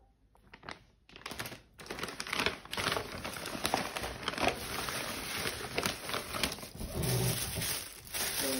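Thin plastic shopping bag crinkling and rustling as a hand rummages inside it, starting about a second in.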